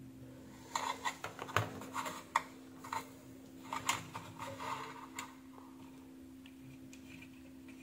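Light, irregular clicks and taps as a soldering iron and wire leads are worked at a switch's solder terminals, lasting about four seconds, then stopping, leaving only a steady low hum.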